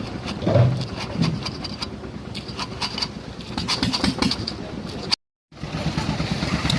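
Engine of a concrete mixer machine running steadily, with a stream of sharp clattering ticks over it. The sound drops out for a split second about five seconds in.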